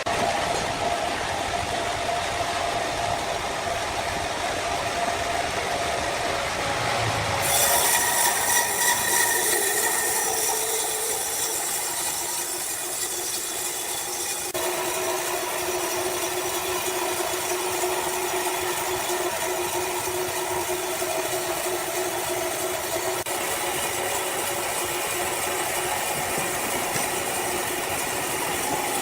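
Sawmill saw running through wood, a steady mechanical hiss with held tones that shift suddenly about a quarter of the way in and again about halfway.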